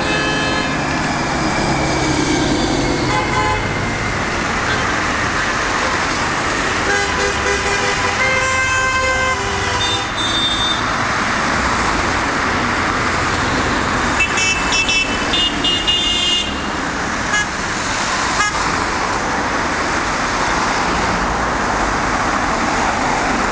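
Steady road traffic with passing drivers sounding car horns several times in support of a protest. There is a long horn blast about a third of the way in, and a cluster of short, higher-pitched toots a little past the middle.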